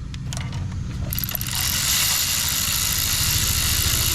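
A steady mechanical hum and hiss, which thins out for about the first second and a half while a few light, irregular metal tool clicks come through. The clicks come from the work on the head bolts of a BMW M52B28 straight-six.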